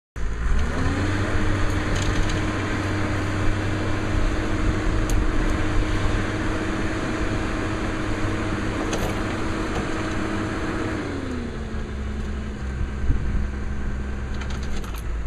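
Heavy machine engine on the ice, revving up about half a second in, holding at raised revs, then easing back to a lower steady speed about eleven seconds in, with a few light clicks over it.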